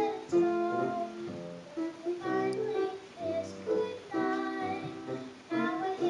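Live music on a plucked string instrument playing a Christmas song, a series of picked and strummed notes.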